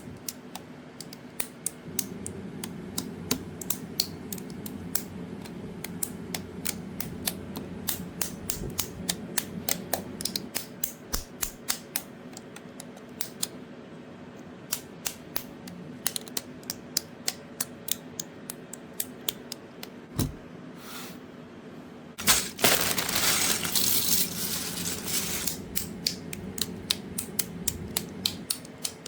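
Plastic Lego bricks clicking and snapping as they are handled and pressed together, in many sharp, irregular clicks. A louder stretch of noisy handling comes about three quarters of the way in.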